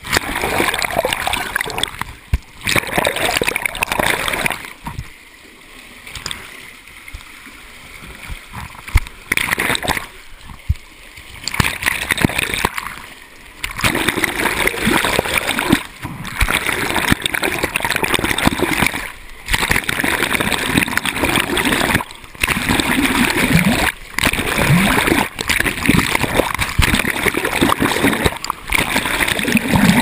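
Water splashing and sloshing as a person crawls on hands and knees through a ribbed culvert pipe with water in it. The splashing comes in repeated bursts with short pauses, and is quieter for a few seconds about five seconds in.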